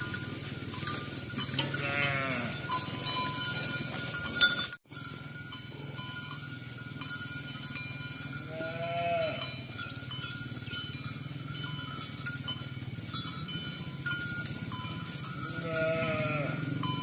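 Farm animals calling three times, high-pitched bleat-like calls, the first one wavering, over steady clanking of livestock bells. The sound cuts out for an instant about five seconds in.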